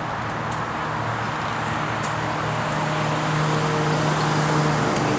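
Steady outdoor background noise, an even hiss, with a low steady hum underneath that grows louder about halfway through.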